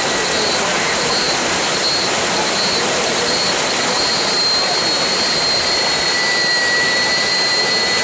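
Waterfall pouring onto rock at close range: a loud, steady rush of falling and splashing water.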